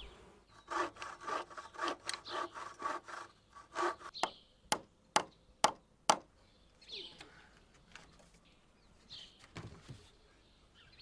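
Hand saw cutting wood in quick strokes, about three a second, followed by four sharp hammer blows driving a nail into a wooden ladder rung.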